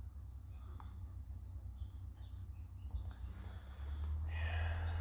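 A few short, high-pitched bird chirps over a low, steady hum. Near the end comes a rustle of feathers and hands as a racing pigeon is picked up and handled.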